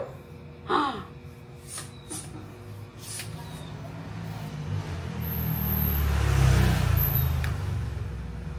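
A motor vehicle passing on the street: a low rumble that swells to its loudest about two-thirds of the way through and then fades. A few light clicks come in the first three seconds as the telescoping selfie stick is handled and collapsed.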